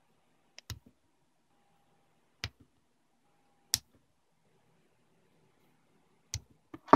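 Small side cutters stripping insulation off thin hookup wires: a handful of sharp, short clicks spaced a second or more apart, one of them louder than the rest about midway.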